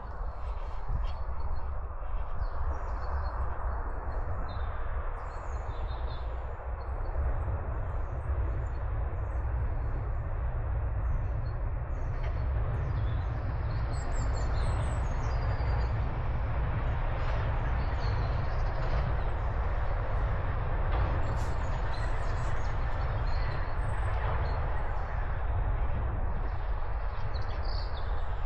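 Small woodland birds chirping now and then over a steady rumbling noise that is the loudest sound throughout.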